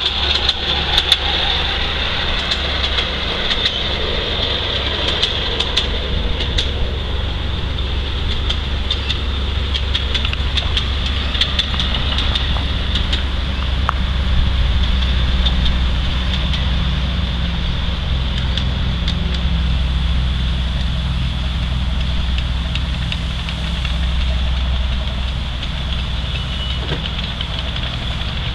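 The engine of a 5-inch gauge Maxitrak Planet model locomotive runs steadily as the loco laps the track. It grows louder about halfway through as it passes close by.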